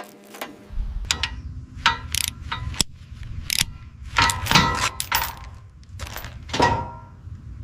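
Irregular metallic clanks and knocks, some ringing briefly, over a steady low rumble that comes in just under a second in; the loudest strikes fall in the middle of the run.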